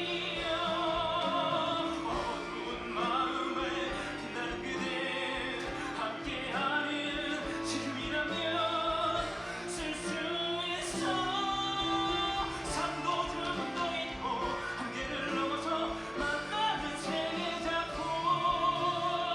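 Musical-theatre singing over instrumental accompaniment, the voices held in long notes with vibrato.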